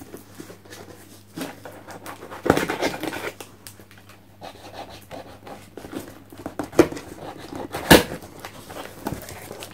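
Items being unpacked from a box: a rustle of packing, then two sharp knocks as things are handled and set down, over a low steady hum.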